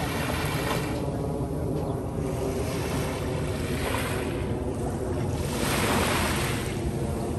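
Sea waves washing up on a sandy beach, the surf swelling and fading about three times, with wind rumbling on the microphone underneath.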